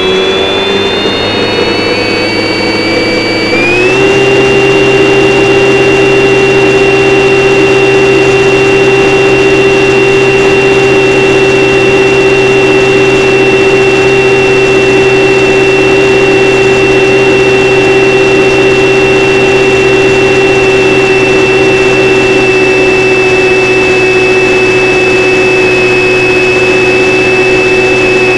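Model airplane's motor and propeller whining steadily, heard from the onboard camera. The pitch steps up slightly about four seconds in, then holds steady.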